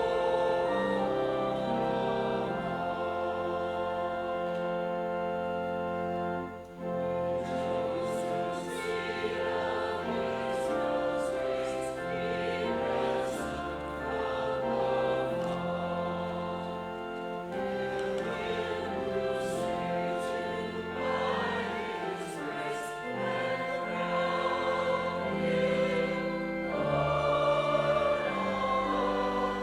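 Church offertory music: a choir singing over sustained, held chords that change in slow steps.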